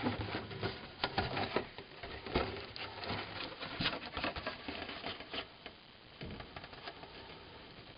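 Handling noise from the cardboard box of a vintage toy: irregular rustles, taps and clicks as it is turned and moved, dying away about seven seconds in.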